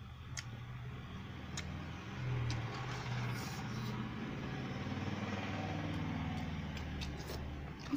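A motor vehicle passing: its engine hum swells from about two seconds in and fades near the end. A few sharp clicks of eating by hand and chewing sound over it.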